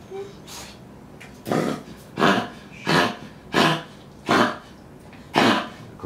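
A 10-year-old Pomeranian coughing, six coughs in a row starting about a second and a half in, roughly one every three-quarters of a second. It is her persistent cough, which the vet suspects comes from an irregular heartbeat; an X-ray showed an enlarged heart.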